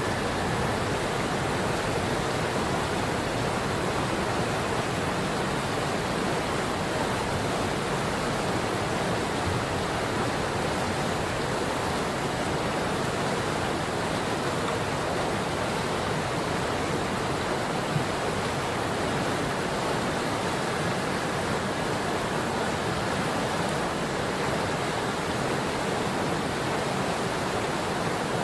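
The Patapsco River's flowing water: a steady, even rush.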